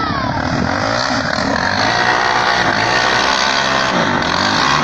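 Several vehicle engines running at once and revving, their overlapping pitches rising and falling.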